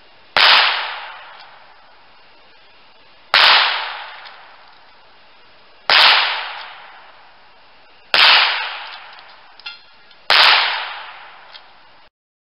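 Five shots from a High Standard .22 rimfire convertible, sharp cracks spaced two to three seconds apart, each trailing off over about a second.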